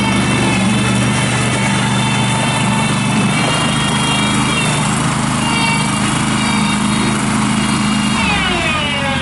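Kohler 20 hp V-twin gas engine of a Terramite T5C compact backhoe loader running steadily at speed, then slowing near the end as it is throttled down, its pitch falling.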